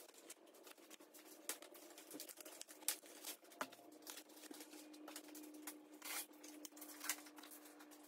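Faint handling noises of packing material on a bike frame: scattered light clicks, rustles and crinkles of plastic wrap and foam protectors, over a steady low hum.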